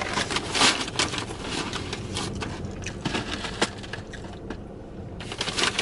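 McDonald's paper takeout bag crinkling and rustling as a hand rummages through it, unevenly, loudest in the first second.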